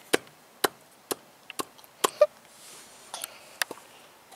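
A large hand oil syringe being pressed into a Ural motorcycle's gearbox filler to inject transmission oil, giving about ten irregular sharp clicks and knocks, the loudest two about halfway through.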